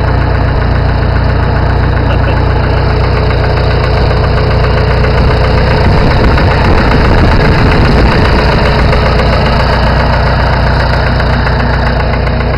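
Farmall 450 tractor engine running steadily at idle with a knock in the motor, the sign of worn internals that need a rebuild.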